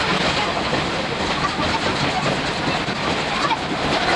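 Running noise of a 50-series passenger coach on the move, sped up: wheels clattering on the track over a steady rush, packed into a dense, even clatter.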